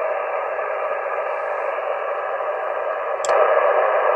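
Steady noise and interference hiss from an HF amateur transceiver's speaker, receiving the 40-metre band in SSB. About three seconds in there is a click, and the hiss turns louder as the QRM Eliminator phase noise canceller is switched off.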